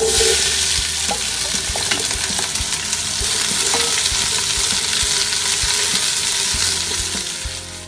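Sliced onion sizzling in hot oil in a stainless steel pot, with a steady hiss, while a wooden spatula stirs it and knocks lightly against the pot now and then. The sizzle eases off near the end.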